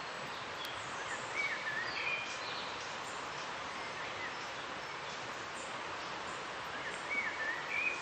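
Steady rush of a river, with a bird singing over it: a short warbling phrase of chirps about a second and a half in, and the same phrase again near the end.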